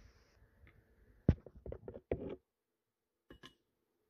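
Hand tools and clamps knocking and clicking against a steel transmission band while a kevlar lining is fitted: one sharp knock about a second in, a quick run of clicks and knocks after it, then two faint clicks near the end.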